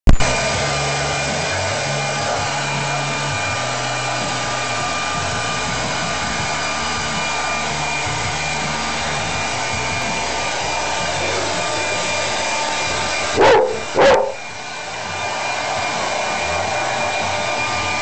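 Hand-held hairdryer running with a steady whine. About thirteen seconds in, a Labrador gives two short, loud barks in quick succession.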